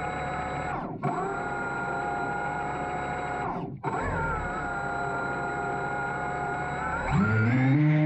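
A small electric motor whining steadily, twice winding down almost to a stop and at once spinning back up. Near the end, steady low sustained tones rise in.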